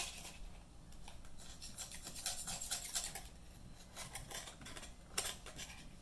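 Steak knife scraping and slicing along the inside of a gaper (horseneck) clam shell, a series of short scratchy strokes, cutting the meat and adductor muscle away from the shell. A sharper click about five seconds in.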